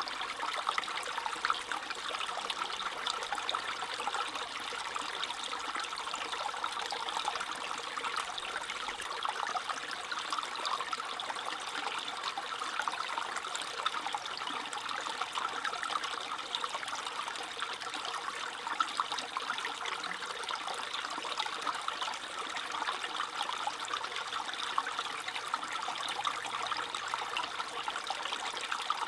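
A small stream trickling and babbling over stones, a steady bright gurgle without a break.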